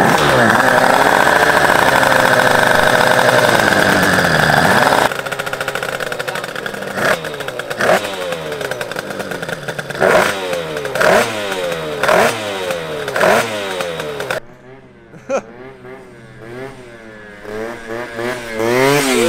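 Two-stroke scooter engine held at high revs for about five seconds while the rear tire spins in a burnout, then blipped in repeated revs about once a second. After a sudden drop in level, a scooter is heard farther off, its engine pitch rising again and again as it pulls away.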